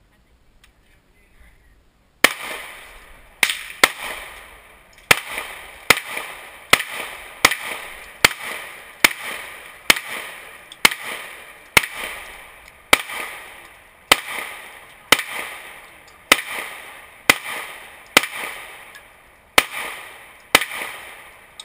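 A steady string of gunshots, about 25 in all at roughly one a second, beginning about two seconds in. Each shot trails off with echo.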